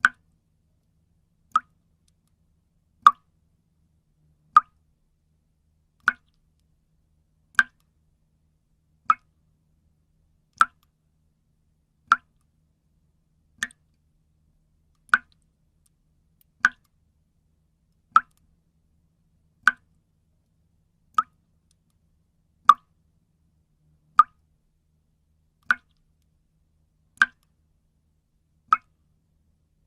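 Water dripping: single drops falling one at a time at an even pace, about one every one and a half seconds, each a short plop.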